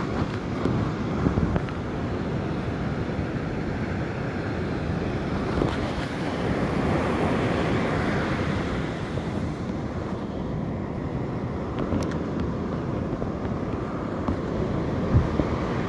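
Ocean surf breaking and washing up the beach, with wind buffeting the microphone; the wash swells about halfway through. A few brief knocks stand out, the loudest near the end.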